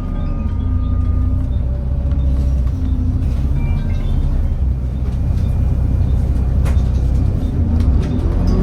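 Volvo B7TL bus's Volvo D7C diesel engine running, heard from inside the bus as a heavy low rumble; its pitch holds fairly steady, then dips and starts rising near the end as the bus pulls away.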